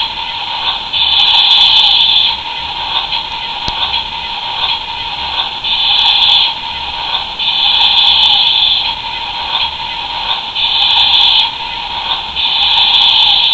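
Battery-powered toy excavator's sound effects playing through its tiny speaker: a steady, tinny, hissing noise with louder stretches of about a second that come back every two to three seconds, five times.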